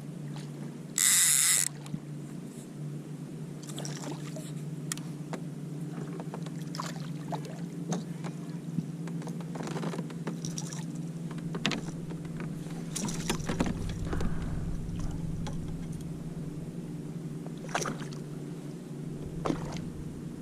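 Steady low hum of a boat under way on the water, with scattered clicks and splashes and a short loud hiss about a second in.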